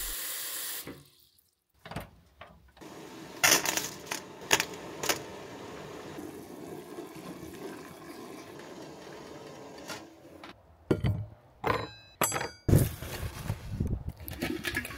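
Tap water running into a steel stockpot, cut off about a second in. Then a steaming pot stirred with a wooden spoon, with a steady seething noise and a few knocks against the pot. Near the end come a run of clanks and rattles as the pot is handled and a tangle of wiring is tipped out of it onto a plate.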